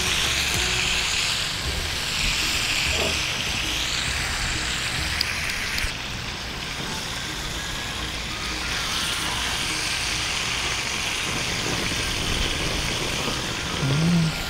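Honey-marinated chicken pieces sizzling steadily in hot oil in a skillet, pan-frying slowly over moderate heat. A brief low hum near the end.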